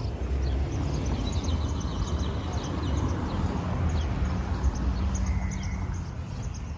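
Outdoor ambience: a steady low rumble with small birds chirping and trilling over it.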